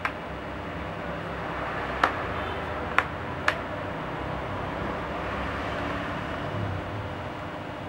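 Four sharp plastic clicks, three of them within about a second and a half near the middle, as the laptop's plastic bottom case is pried open and its clips snap loose, over a steady background hiss.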